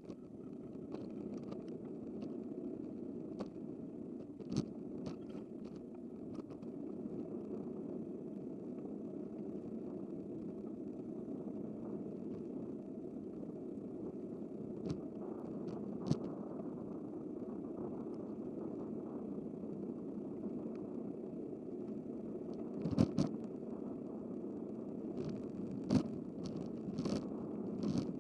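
Steady rolling road noise of a bicycle being ridden, with scattered sharp clicks and rattles and a few louder ones in the last few seconds.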